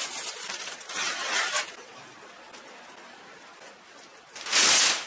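Masking tape being pulled off a freshly primed sheet-metal body panel in short rasping rips, with a louder, quick tearing pull about four and a half seconds in.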